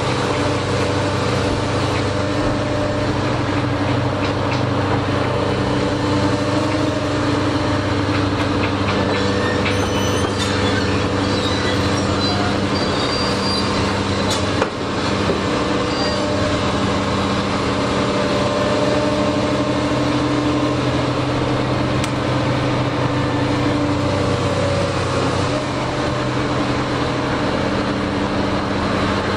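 Caterpillar tracked hydraulic excavator's diesel engine running steadily under load as it works its boom and bucket, with a single sharp knock about halfway through.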